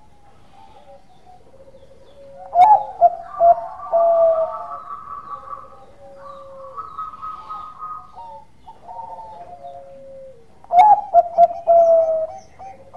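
Zebra dove (Bangkok-type perkutut) cooing: soft, rolling coo phrases repeating, with two louder bursts of quick staccato coos, one about three seconds in and one about eleven seconds in.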